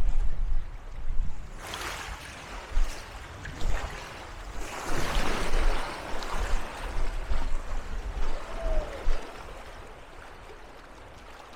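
Whitewater rapids rushing around a canoe as it runs through them, with two louder surges of splashing about two and five seconds in. A low rumble runs underneath.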